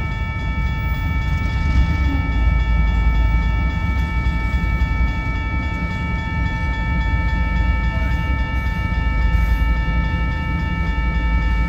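Freight train of autorack cars rolling past with a steady low rumble, while the grade-crossing warning bell rings continuously.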